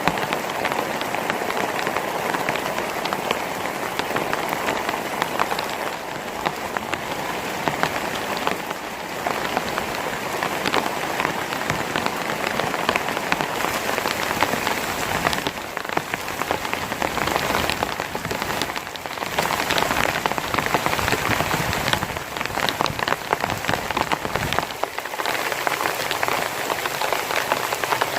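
Heavy rain falling steadily, with many sharp drop impacts on a surface close by.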